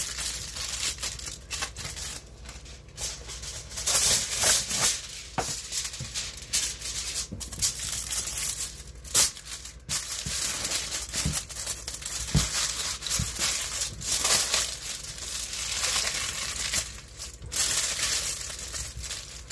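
Aluminium foil crinkling and rustling in irregular bursts as it is folded and pressed by hand around a stack of tortillas, with a few sharper crackles.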